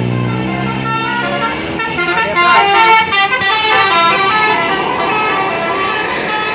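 Tour bus's Basuri telolet multi-tone horn playing a stepped melody, several notes sounding at once, loudest about three seconds in. A low steady hum dies away in the first second and a half.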